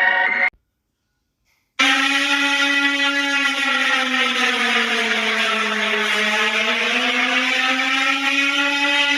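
A synthesizer-like tone cuts off half a second in. After a second of silence, a loud, buzzy, horn-like alarm drone sets in and holds. Its pitch sags slowly in the middle and rises back, in the manner of a fictional EAS alert sound.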